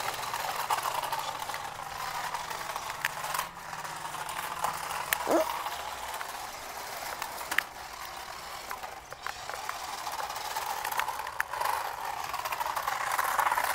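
Remote-control toy cars running: small electric motors whirring, rising and falling in pitch, with plastic rattling and a few sharp clicks.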